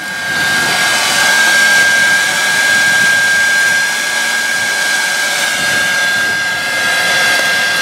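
Electric heat gun blowing steadily, a hiss of air with a thin high whine, used to melt Prop Shield wax antifouling on a propeller.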